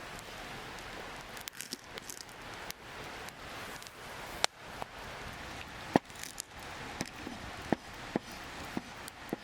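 Wood campfire crackling: irregular sharp pops over a steady hiss, a handful of louder pops in the second half.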